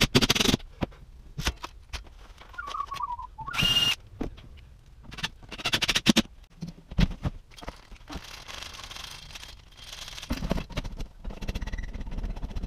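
Cordless impact driver driving long wood screws through cabinet backs into wall studs, in several bursts of rapid hammering clicks with pauses between.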